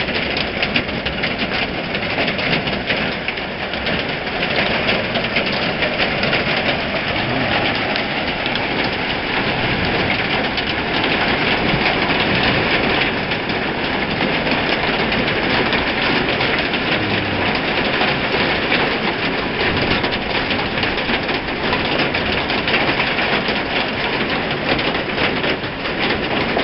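Hail hitting a barn roof: a loud, steady clatter of countless small impacts that merge into one dense roar.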